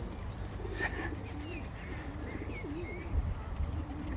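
Feral pigeons cooing: a string of low, wavering coos, with a few short higher chirps above them.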